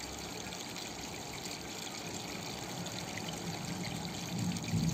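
Steady, even background hiss with no distinct events; a faint low murmur rises near the end.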